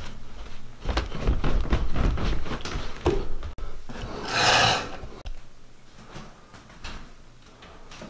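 Footsteps and handling thumps going down carpeted stairs, then a bathroom scale slid across a tile floor with a short loud scrape about halfway through, followed by a few soft knocks.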